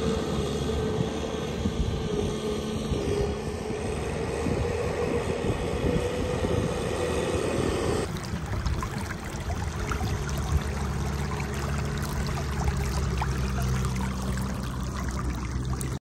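Farm tractor's diesel engine running steadily as it pushes mud with a front blade in a flooded rice paddy. About halfway through the sound shifts to a lower, steadier drone.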